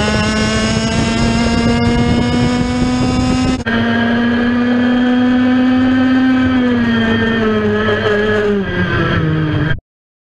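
IAME X30 125cc two-stroke kart engine running at high revs, heard from onboard the kart. Its pitch climbs slowly, breaks off abruptly at a cut, then holds high before the revs fall away. The sound stops dead near the end.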